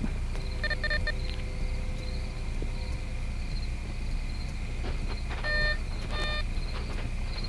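Metal detector giving short pitched beeps as it passes over a target: one about a second in, then two more near the end. Under them run a faint steady hum and hiss.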